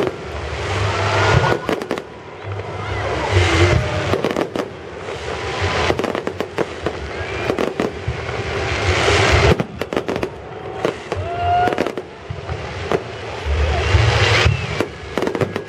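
Fireworks display: aerial shells going off in repeated sharp bangs with deep booms, over swelling crackle and hiss.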